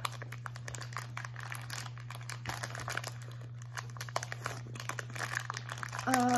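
Plastic snack bags crinkling and crackling as they are handled, in a long run of small irregular crackles. A short hummed voice sounds briefly near the end, over a steady low electrical hum.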